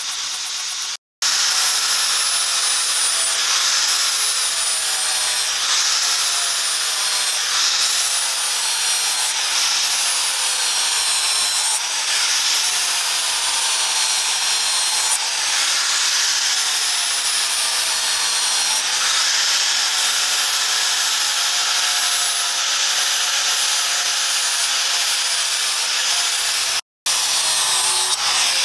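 Angle grinder with a flap disc grinding a steel sword blade, its motor whine wavering up and down as the disc is pressed onto the metal. The sound cuts out for an instant about a second in and again near the end.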